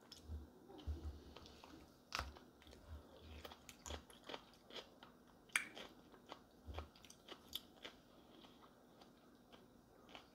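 A person chewing fried eggs with tomato close to the microphone: quiet chewing with scattered wet mouth clicks, and a few sharper clicks of a wooden fork against a plate.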